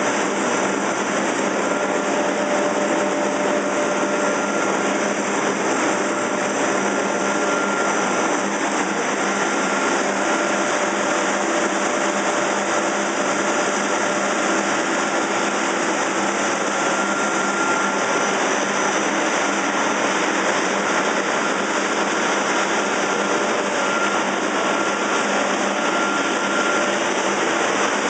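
Machinery of a fish feed and pet food extrusion line running: a steady mechanical whir with several constant hums, unchanging throughout.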